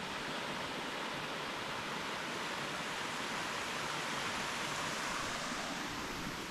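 A small mountain torrent cascading downhill, a steady even rush of falling water.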